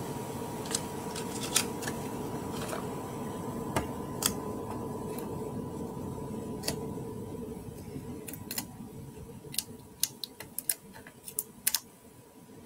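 Hands handling white card stock on a craft mat: the card is pressed down and set aside, with scattered small clicks and taps that come more often near the end, over a steady faint hum.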